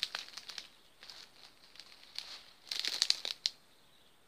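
Dry palm fronds and leaf litter crackling and crunching as someone moves through them, in two bursts: one at the start and a louder one about three seconds in.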